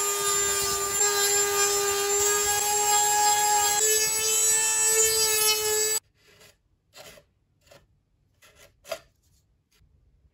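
Handheld rotary tool with a sanding drum running at a steady high whine as it sands the 3D-printed plastic body; its pitch steps up slightly a little before four seconds in. It cuts off abruptly about six seconds in, leaving a few faint scrapes of a putty knife spreading filler.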